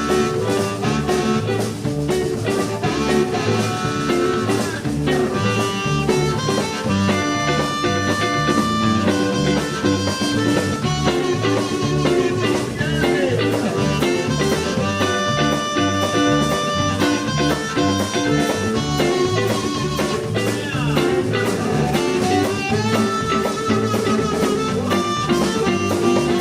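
Blues band playing an instrumental passage: guitar and drums over a steady beat, with long held notes ringing out now and then.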